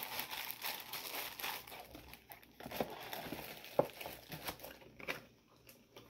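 Packaging crinkling and rustling as it is handled and unwrapped, with a couple of sharper taps in the middle, growing quieter near the end.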